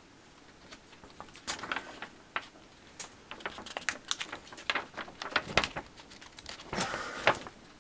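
Folded paper instruction sheet rustling and crinkling as it is handled and turned over, a run of irregular sharp crackles.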